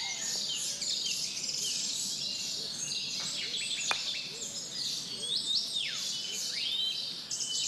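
Garden birdsong: several small birds chirping and twittering, with quick falling whistles. About four seconds in, a single sharp knock, a croquet mallet striking a ball.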